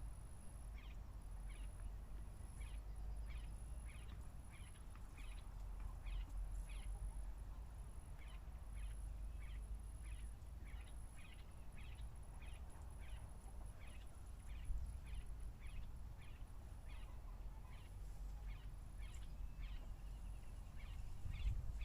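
A bird calling over and over with short high notes, about two a second, with a faint steady very high-pitched tone and a low rumble beneath.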